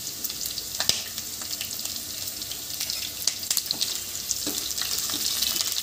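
Sliced green chillies and garlic sizzling in hot oil in a kadai: a steady hiss with scattered crackles and pops, stirred with a steel spoon.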